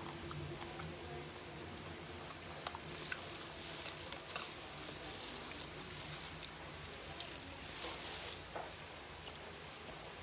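Crispy boneless fried chicken being pulled apart by a hand in a clear plastic glove: scattered crackling and light clicks, busiest from about three to eight seconds in.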